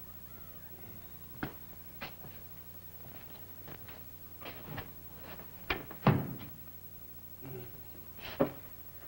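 A handful of scattered wooden knocks and thumps, the loudest about six seconds in, as someone moves among wooden packing crates.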